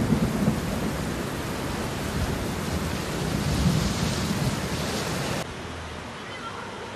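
Floodwater rushing in a torrent along a street: a steady loud rushing noise with a low rumble. About five seconds in it cuts off abruptly to a quieter, even hiss of water.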